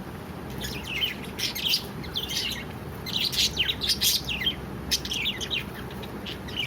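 Pet budgerigars chirping in quick runs of short, falling chirps, busiest in the middle, over a steady low background rumble.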